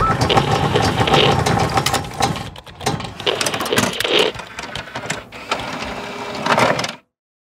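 Sound effects for an animated logo intro: rapid mechanical clicking and whirring with a few louder swells, cutting off suddenly about seven seconds in.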